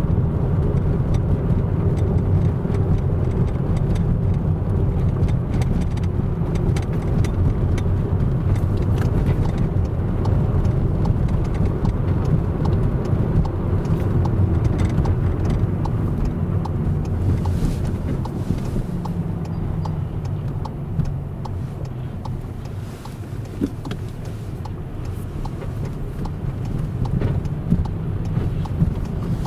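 Car driving heard from inside its cabin: a steady low engine and tyre rumble over a snowy road. It grows quieter past the middle as the car slows in traffic, then picks up again near the end.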